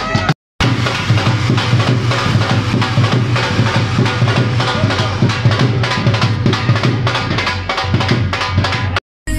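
Dhol drums beating a fast, driving rhythm, dropping out briefly about half a second in and again near the end.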